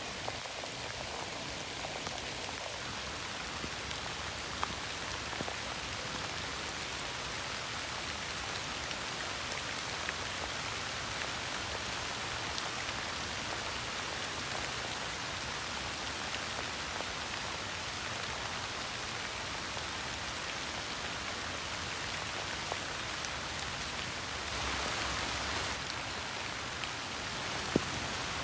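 Steady rain falling on fallen autumn leaves, a constant patter with a few louder single drops landing close by. The rain grows a little heavier for a couple of seconds near the end.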